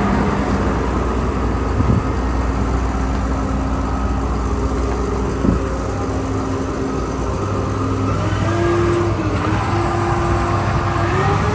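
Dynapac SD2500CS asphalt paver's diesel engine running steadily, with two short knocks. About two-thirds of the way through, a whining tone joins that dips and wavers in pitch.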